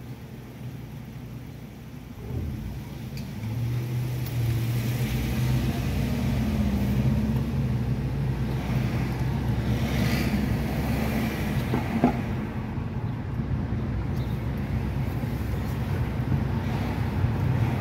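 Car engine and tyre noise heard from inside the cabin. It is quiet while the car waits at a light, rises a couple of seconds in as the car pulls away, and then settles into a steady low hum while driving. There is one short knock about twelve seconds in.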